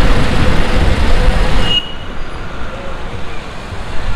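Wind rush and engine and road noise from riding a scooter along a road, cutting off suddenly about two seconds in to a quieter street background.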